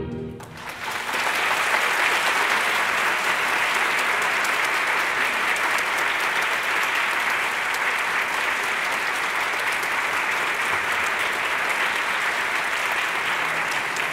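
Audience applauding steadily, swelling up within the first second.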